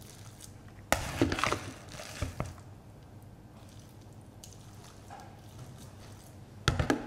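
Slotted metal spoon clattering and scraping against the dishes while scooping and spreading raw ground beef, in sharp bursts about a second in, briefly again around two seconds, and near the end.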